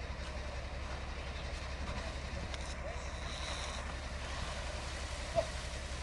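Hitachi excavator's diesel engine running steadily with a low rumble. There is a short, higher chirp about five seconds in.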